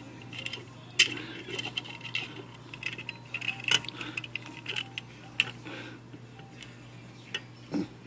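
Irregular metallic clicks and scrapes of needle-nose pliers and a steel pick working the coiled steel mainspring of an Oliver No. 5 typewriter in its drum, the sharpest click about a second in. The tools are trying to bend the spring's end tab cold, without it giving.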